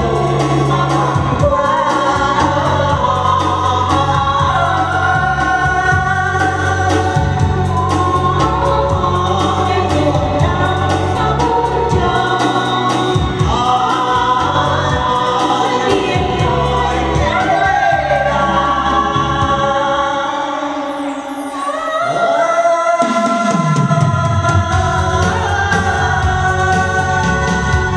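A man and a woman singing a Vietnamese duet through microphones over amplified instrumental accompaniment. The music thins briefly about three-quarters of the way through, then picks up again.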